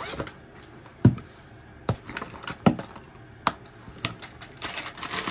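A string of sharp taps and knocks, five or six of them roughly a second apart, the loudest about a second in and near the middle, with a softer rustle near the end.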